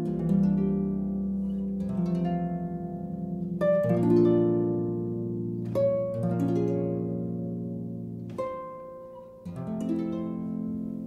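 Instrumental background music: calm plucked-string chords struck every second or two, each ringing out and fading before the next.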